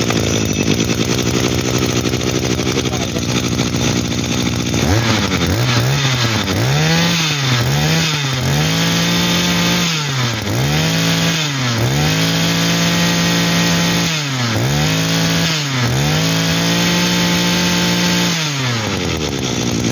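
Echo 22cc two-stroke brush-cutter engine, just started, idling steadily for about five seconds, then revved by hand about a dozen times in short blips that fall back each time, before settling to idle near the end. It runs cleanly, and the seller rates it as running very well.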